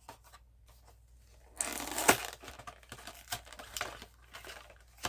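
Blister-card packaging of a diecast car crinkling as it is handled: a short burst of crinkling about a second and a half in, then scattered light clicks and rustles.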